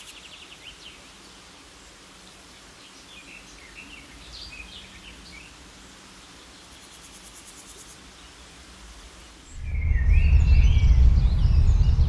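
Small birds calling in short chirps, with a fine insect-like trill high above. About nine and a half seconds in, a loud low rumble sets in suddenly and more bird calls sound over it.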